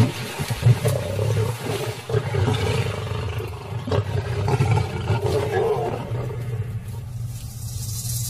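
Lions growling and snarling over a buffalo carcass as they feed, in deep uneven rumbles that rise and fall, with water splashing around them near the start.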